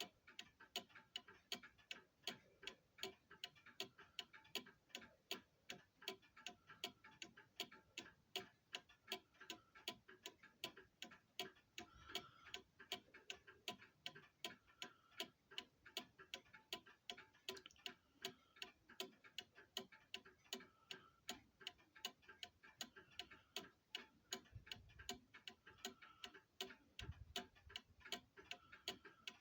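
Waterbury pendulum clock movement's escapement ticking in a quick, even rhythm, the pendulum swinging with a small arc up from its minimum running arc.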